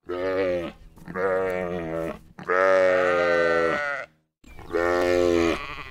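Sheep bleating four times in a row, the third bleat the longest.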